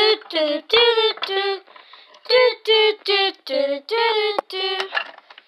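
A child singing a little tune on held notes that step between a few pitches, in two phrases with a short pause about two seconds in.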